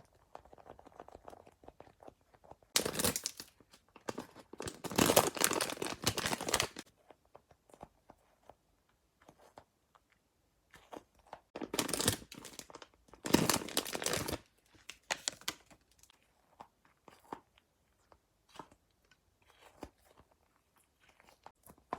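Crayola Globbles, sticky squishy toy balls, being squeezed and pulled apart by hand, giving sticky peeling noise in four bursts: two short ones near three and twelve seconds in, and two longer ones around five and thirteen seconds in. Faint clicks and crackles fall between the bursts.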